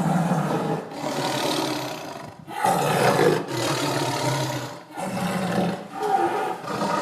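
A big cat roaring and growling, a rough, low call repeated about six times with short breaks between.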